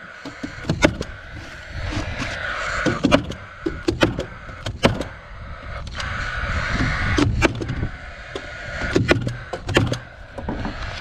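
Paslode cordless framing nailer driving nails through a plywood gusset into the truss lumber: about ten sharp shots at irregular intervals.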